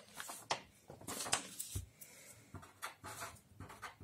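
Sheets of paper rustling and sliding on a table as a page is changed, then a pen scratching on paper in short strokes near the end.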